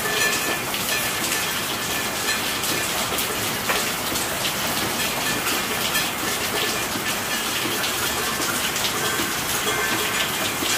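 Steady rain falling, a dense even hiss with many individual drops ticking on surfaces.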